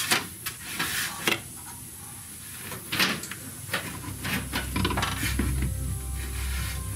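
Hands working at the fittings and wiring connectors above a pickup truck's fuel tank: scattered sharp clicks and knocks of plastic and metal. A low steady hum comes in about four seconds in.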